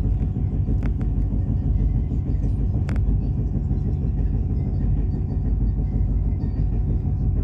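Steady low rumble of a moving motor vehicle, with a faint steady engine hum and a couple of brief clicks, about one and three seconds in.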